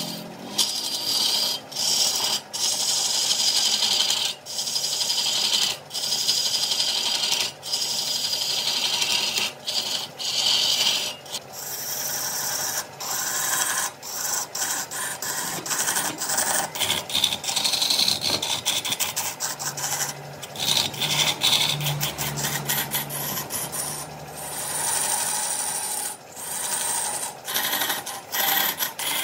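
Wood lathe turning: a cutting tool shaving a spinning wooden workpiece with a steady rasping hiss, broken by short gaps every second or two as the tool comes off the wood. A low hum joins for a few seconds about two-thirds of the way through.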